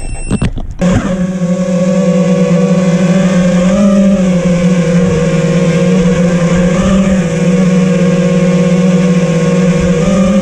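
FPV quadcopter's brushless motors and propellers spinning up suddenly about a second in, then a loud, steady buzzing whine, heard close up from the camera on the quad, its pitch rising slightly twice as the throttle changes.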